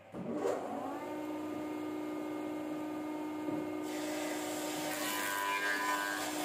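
A woodworking jointer (surface planer) is switched on: its motor whine rises over about a second and settles to a steady running hum. About four seconds in, a square wooden block is fed over the spinning cutterhead, and the cutting adds a loud rushing hiss.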